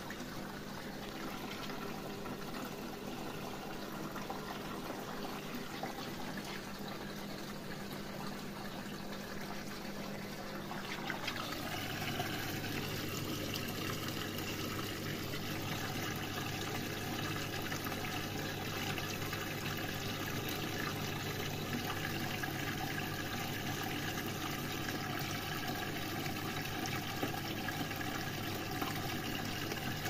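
Washing machine starting a wash program, water running through it. About eleven seconds in a steady low hum comes on and the water gets louder.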